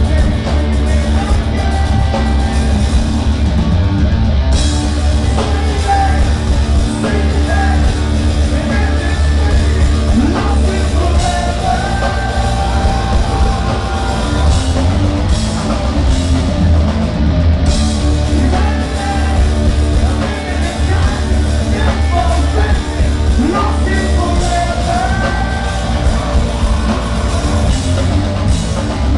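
Live rock band playing loud, a vocalist singing and yelling over drums, guitars and heavy bass.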